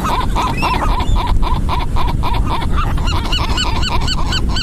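A flock of gulls calling, with a fast run of short repeated calls, joined about three seconds in by a rapid series of arched yelping notes. A steady low noise runs underneath.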